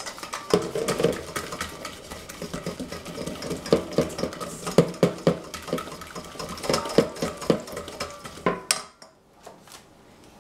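Blue silicone-coated balloon whisk beating an egg yolk and mascarpone mixture in a stainless steel saucepan, with fast, irregular clicks and taps against the pot. The whisking stops about nine seconds in.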